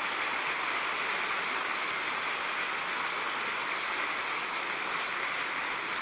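Large theatre audience applauding steadily, the dense even clatter of many hands.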